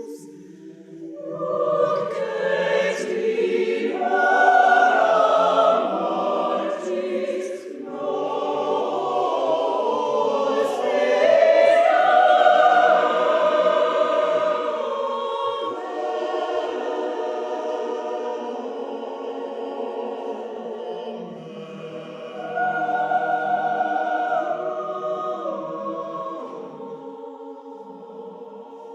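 Church choir singing a Christmas piece, the voices swelling louder twice and easing off toward the end.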